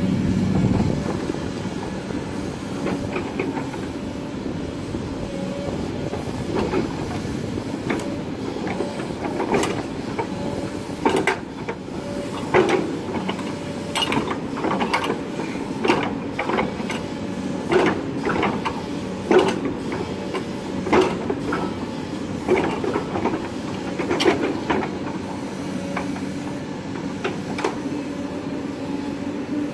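Tracked excavator's engine running steadily while its bucket pushes and packs soil back into a trench, with a run of sharp metallic clanks and knocks, about one a second, through the middle.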